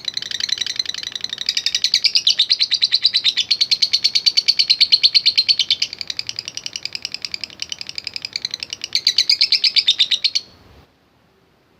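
Lovebird singing a long, unbroken ngekek: a fast, sharp chattering trill of many notes a second, stopping abruptly about ten and a half seconds in.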